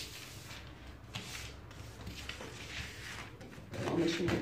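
Pattern paper rustling and sliding as it is handled, then scissors cutting through the paper near the end, louder.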